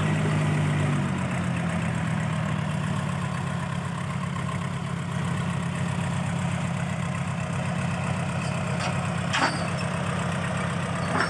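Diesel farm tractor engine idling steadily, with a sharp knock about nine seconds in and another near the end.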